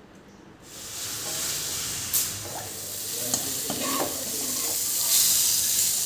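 Hot oil and spices sizzling for a tadka (tempering), with a couple of sharp clicks. The sizzle starts about half a second in and is loudest near the end, as the tempering is poured over kadhi.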